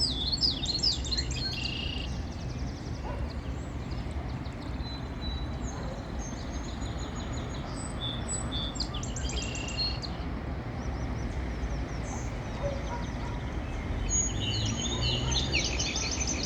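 Small birds chirping in short bursts of quick high notes, three bouts or so, over a steady low background rumble.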